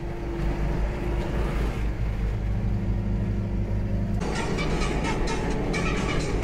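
Tractor diesel engine running at a steady speed, heard from inside the cab. About four seconds in, music with a beat takes over.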